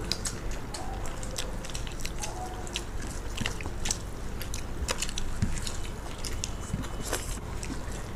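People eating chicken biryani with their hands: chewing and mouth noises, with many short, irregular clicks and smacks.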